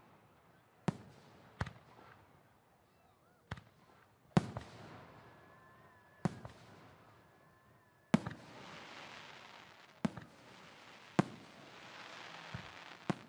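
Fireworks going off: about nine sharp bangs at uneven intervals, with a crackling hiss trailing the later ones and a faint whistling tone about halfway through.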